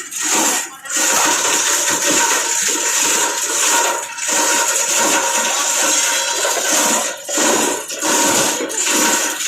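Plastic scrap grinder running and chopping plastic scrap, a loud continuous rushing clatter with a faint steady whine and brief dips about a second in, around four seconds and twice near the end.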